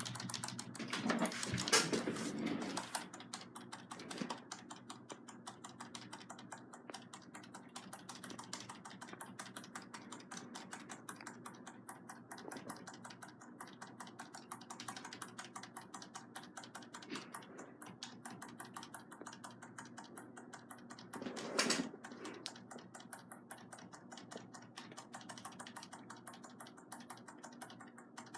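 Computer keyboard keys tapped rapidly and repeatedly, a steady run of clicks. A louder clatter comes in the first couple of seconds and again at about 22 seconds.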